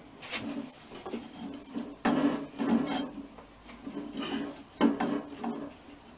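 Hand work on an engine: metal parts and tools knocking, scraping and clattering in irregular bursts, the longest about two seconds in.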